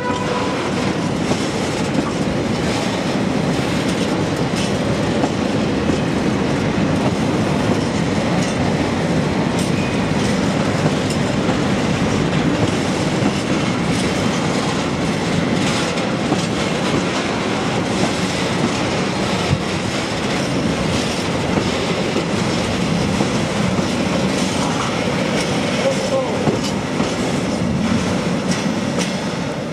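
Freight train of railway tank wagons rolling slowly past close by, with a steady rumble and clatter of steel wheels over the rails.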